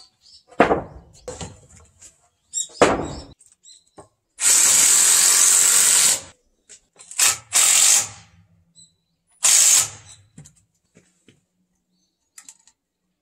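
Two knocks of wooden boards being set down, then a cordless drill runs for about two seconds and in three shorter bursts, driving screws into a wooden frame.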